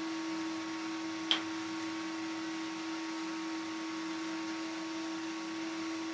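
Steady electrical or mechanical hum made of a few fixed tones over a faint hiss, with one sharp click about a second in.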